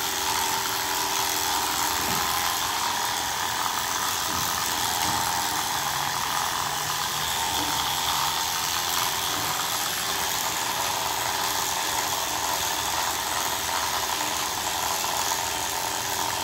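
Electric pet hair clippers running with a steady hum while shaving a cat's matted fur.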